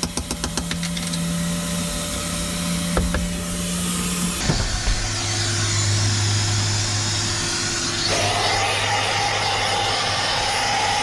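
Shop vacuum motor running steadily with a whooshing hum while its hose cleans the cab floor of a truck; the pitch of the hum shifts abruptly about four seconds in and again about eight seconds in. A few light clicks near the start.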